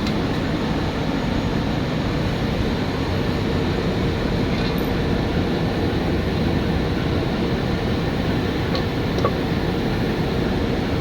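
Ford Ranger engine running steadily, a dense even drone with no break.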